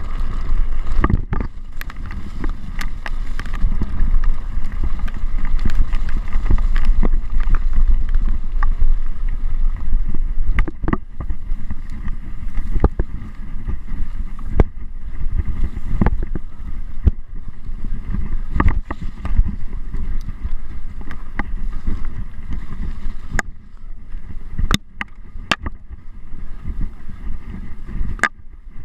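Mountain bike descending a rough trail: a heavy low rumble with frequent sharp knocks and rattles at irregular intervals as it runs over rough ground.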